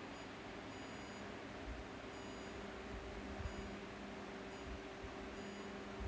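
Running klystron microwave test bench equipment: a steady low electrical hum, with faint high-pitched tones cutting in and out in short stretches about once a second.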